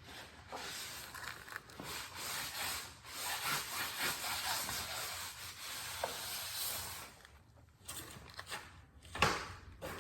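Rubbing and rustling noise for about seven seconds, then a few sharp knocks near the end, the loudest about nine seconds in.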